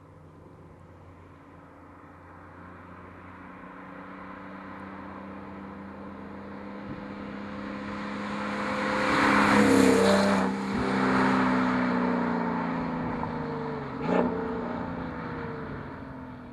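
Porsche 997.2 Turbo's twin-turbo 3.8 L flat-six running through Fabspeed Maxflo mufflers and a bypass X-pipe, swelling to a loud peak over about ten seconds, then dropping in pitch as it eases off. A short sharp throttle blip comes near the end.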